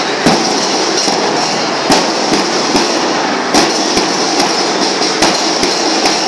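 Drums of a school band melam (marching drum band) playing: a continuous rattling roll, punctuated by heavy drum strikes at uneven intervals.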